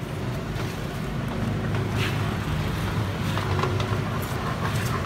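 Street traffic noise: a steady low rumble of road vehicles, with a few faint clicks.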